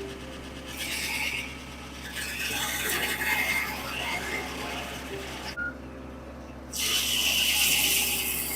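1950 Corley circular sawmill running: a steady drone from the mill's power unit, with the saw's cutting hiss swelling and fading, dropping away for about a second near six seconds in before it picks up again.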